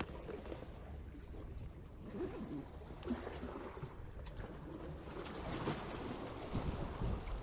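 Small waves washing on a sandy beach, a steady noise with a low rumble underneath and a few faint rustles.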